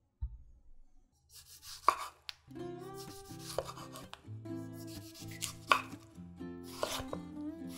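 Kitchen knife slicing through a ripe tomato and knocking on a wooden cutting board, several separate cuts a second or more apart, over soft background music that comes in about two and a half seconds in.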